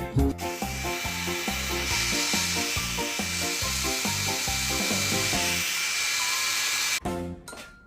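Background music with a walking bass line, overlaid by a steady hissing noise; both cut out suddenly about seven seconds in.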